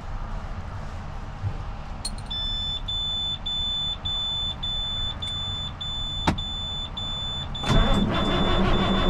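A click about two seconds in, then a high warning beep repeating about twice a second from a truck's dash, typical of the low-air-pressure warning on an air-brake truck with no air built up. Near the end the truck's engine starts and keeps running under the beeping.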